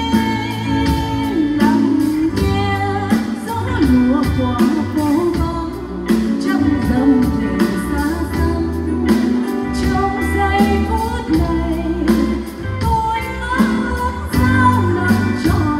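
Female singer performing a slow Vietnamese ballad live with a band: sung melody over guitar, bass and a steady drum beat.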